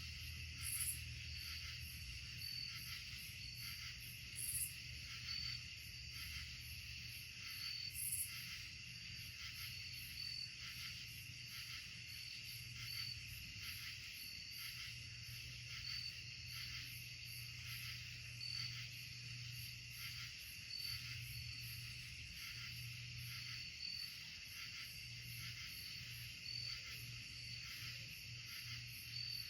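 Night insect chorus in woodland: a steady high trill, with one insect chirping evenly about once every second and a half and a few louder, very high buzzing calls in the first eight seconds. A faint low hum runs underneath.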